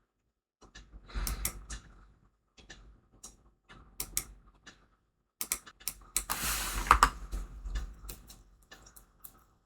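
Typing on a computer keyboard: uneven runs of keystroke clicks, densest and loudest about six to seven seconds in.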